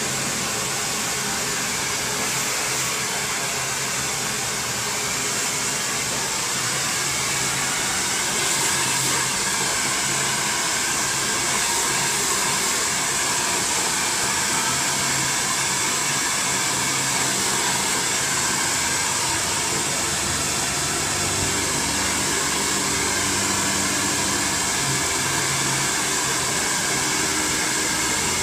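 Handheld hair dryer blowing steadily on wet hair: a continuous rush of air over a faint motor hum, unchanging in level.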